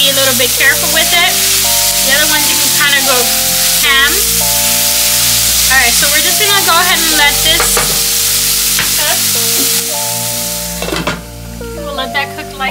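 Cherry tomatoes and chopped vegetables sizzling in a frying pan while a spatula stirs and scrapes through them. The sizzling drops away suddenly about ten seconds in, as the pan is covered with a glass lid.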